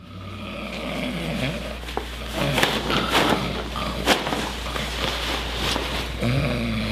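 Barbershop room sound: a steady low hum under scattered sharp clicks and light handling noise, with faint voices near the end.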